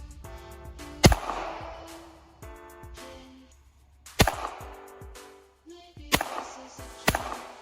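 Four shots from a .22 Ruger Mark III pistol, about a second to three seconds apart, each trailing off in a short echo, over background music.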